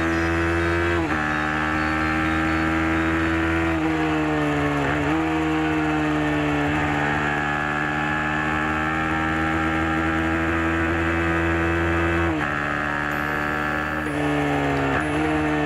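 Racing motorcycle engine held at high revs on board, the pitch dipping sharply at gear changes about five times.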